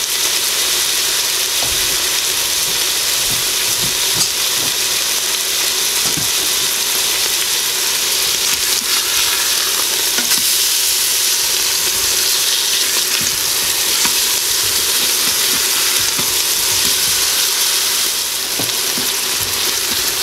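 Ground beef patties sizzling steadily as they brown in the stainless steel inner pot of an Instant Pot on sauté. A few short scrapes and taps come from a plastic spatula as the patties are turned.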